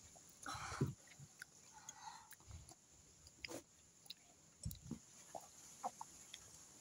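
Quiet eating sounds at a table: chewing and sipping, with scattered small clicks and taps.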